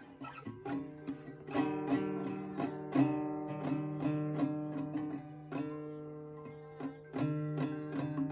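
Acoustic guitar being strummed, about two to three strokes a second in an uneven rhythm, its notes ringing on between strokes.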